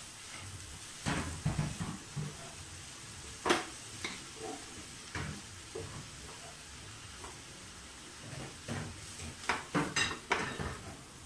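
Wooden spatula stirring and scraping a dry minced-chicken mixture in a nonstick kadai, with irregular knocks against the pan, the sharpest about three and a half seconds in and a quick cluster near the end, over a faint steady hiss.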